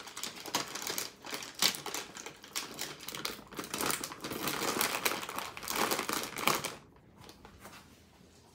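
Plastic snack bag crinkling and rustling as it is handled and opened by hand, a dense run of crackles that stops about seven seconds in.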